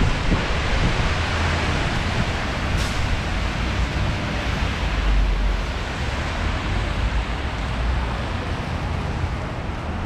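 City traffic and rain on wet streets: an even hiss of rain and tyres on wet pavement over a steady low rumble.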